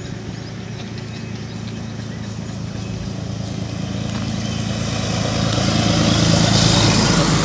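Large truck's engine running as it approaches, a steady low hum with rising tyre noise that grows steadily louder, loudest near the end.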